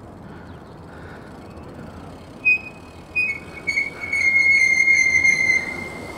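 High-pitched squeal from a Fly Bikes BMX being ridden: a few short squeals about halfway through, then a longer one of about a second and a half that slides slightly lower in pitch before stopping.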